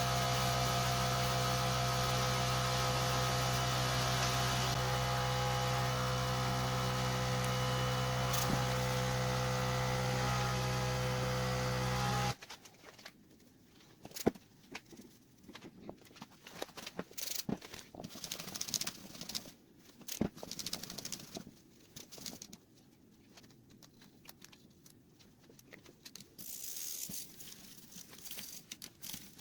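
An electric motor running steadily with a buzzing hum that cuts off abruptly about twelve seconds in, followed by scattered light clicks and handling sounds.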